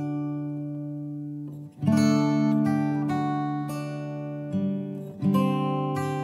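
Background music on acoustic guitar: chords strummed and left to ring out, with a new chord struck about two seconds in and again near the end.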